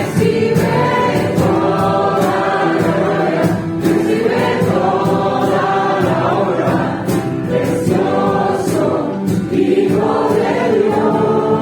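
Church worship music: many voices singing a worship song together over band accompaniment, with a steady beat.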